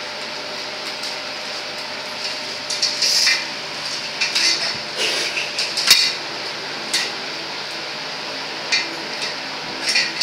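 Sharp metallic clicks and knocks of a metal utensil striking crabs on a stainless steel plate, several quick taps in a cluster from about two and a half to seven seconds in, the loudest near six seconds.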